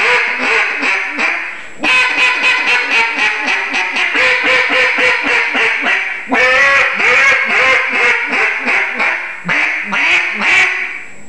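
Bocote-wood single-reed mallard duck call blown in three runs of rapid, short quacks, several a second, with brief breaks about two seconds and six seconds in.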